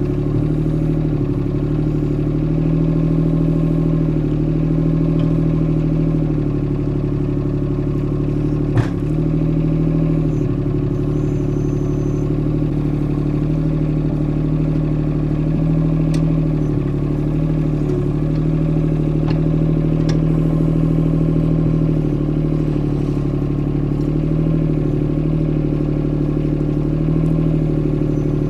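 Yanmar three-cylinder diesel of a Kobelco SK13SR mini excavator running steadily, its pitch sagging briefly every few seconds as the hydraulics take load. A single sharp clank about nine seconds in.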